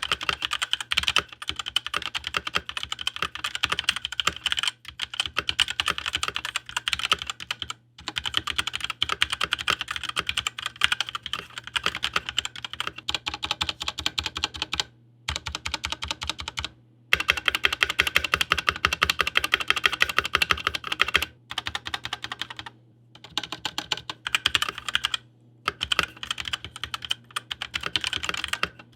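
Typing on a Cooler Master CK721 65% mechanical keyboard with TTC linear switches: fast, continuous keystroke clacking in long runs, broken by a few brief pauses.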